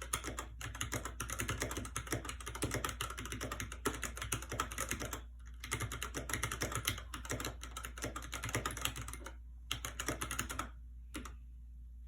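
Keychron K6 mechanical keyboard being typed on quickly, a dense run of key clacks that stops about nine seconds in, picks up again for a moment, and ends with a few single keystrokes.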